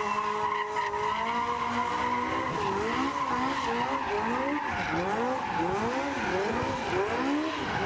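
Hot-rodded vintage saloon car spinning donuts: engine held at high revs with tyres screeching on the tarmac. A couple of seconds in, the pitch starts swinging up and down again and again, a little under twice a second.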